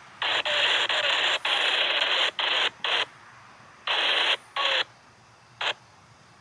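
Scanner radio breaking squelch on the railroad channel: a string of short bursts of static hiss that open and cut off abruptly, the longest about a second, mostly in the first five seconds.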